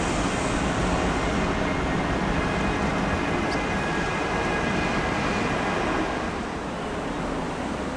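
Steady outdoor city background noise, an even rush with faint traffic-like hum. It drops a little about six seconds in.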